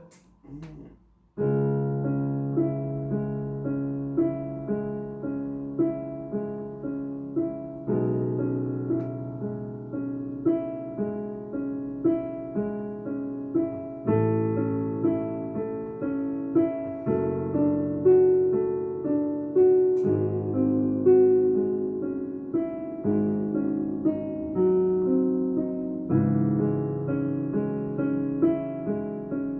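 Piano playing a slow piece of held chords and repeated notes. It starts about a second and a half in, and the harmony changes every few seconds.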